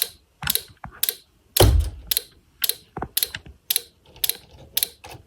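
Regular sharp clicking, about two clicks a second, from a Snap Circuits fire alarm setup under test, with one heavier dull thud about a second and a half in.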